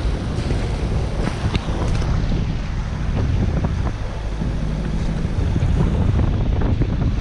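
Wind buffeting the microphone aboard a sailing yacht under way, a steady low rumble over the rush of water along the hull.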